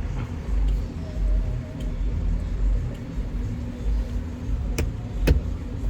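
Car cabin noise while driving: a steady low road and engine rumble, with two sharp clicks about half a second apart near the end.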